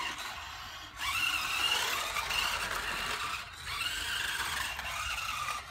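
Electric motor of a Carrera RC Mario Kart toy car whining as it drives. The whine starts about a second in, rises and falls in pitch with the throttle, and drops out briefly past the middle.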